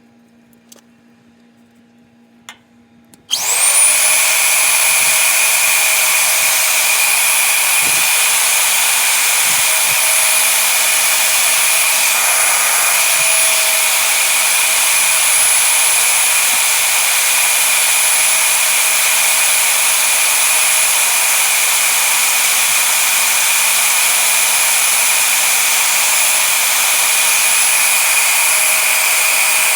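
A few faint clicks, then about three seconds in an electric power tool's motor spins up to a high whine and runs steadily at full speed.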